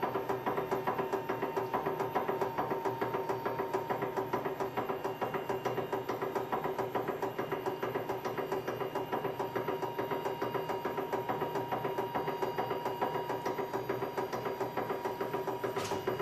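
Hydraulic press running steadily as its ram slowly bends a flat metal bar, a hum with a regular pulse of about four to five beats a second.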